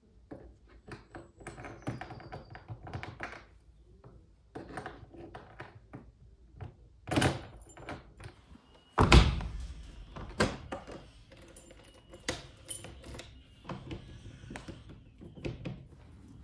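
Irregular clicks, taps and knocks of a lock being fitted into a plastic service door, with one heavy thunk about nine seconds in.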